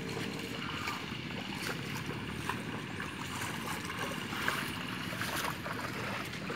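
Feet wading through a flooded, muddy rice paddy, the water sloshing and splashing around the legs at a fairly even level.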